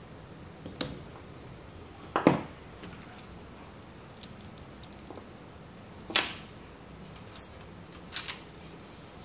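Short plastic clicks and knocks from hands handling RC wiring, connectors and LEGO Technic parts. There are four clacks, the loudest a double knock about two seconds in, and a few faint ticks between them.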